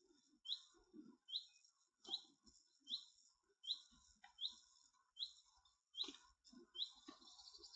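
A small bird repeating one short, high chirp about once a second, with soft low crunching sounds in between.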